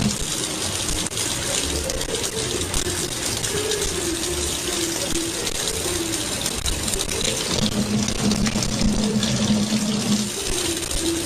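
Water running steadily, like a tap left on, with a faint low wavering tone underneath.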